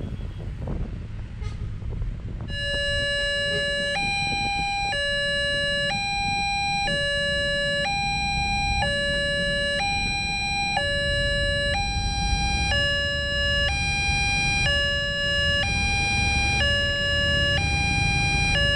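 Railway level-crossing warning siren sounding from a single horn loudspeaker on the crossing post, alternating between a lower and a higher buzzy tone about once a second and starting about two and a half seconds in. It warns of an approaching train while the boom barrier comes down. Road traffic rumbles underneath.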